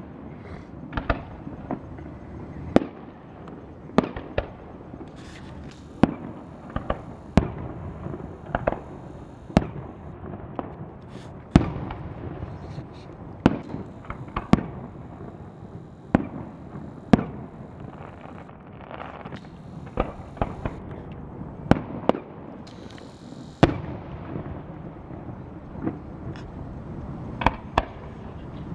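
Aerial fireworks shells bursting in a steady run of sharp bangs, about one every one to two seconds.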